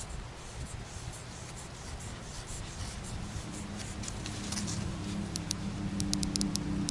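Rubbing and a quick run of small clicks from an Armytek headlamp being handled and switched on. A low steady hum comes up in the background about halfway through.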